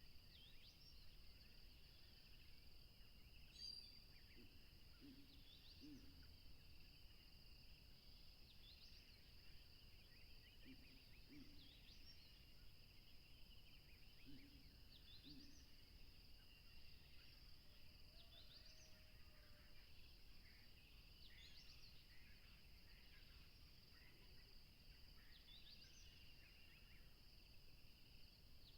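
Faint outdoor bird ambience: a steady high insect drone, with birds giving short rising chirps every couple of seconds and a few low paired notes in between.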